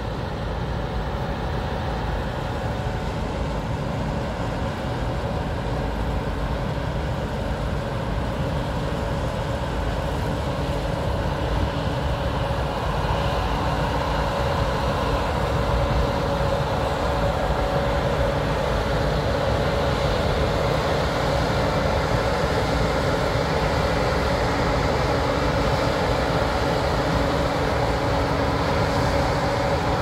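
Gleaner combine harvester running while it cuts soybeans with its draper header: a steady mechanical hum with a held whine, growing gradually louder as the combine approaches.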